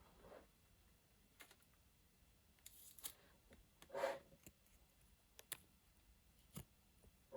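Faint, scattered clicks and one brief rustle about four seconds in: small watch parts and their boxes being handled.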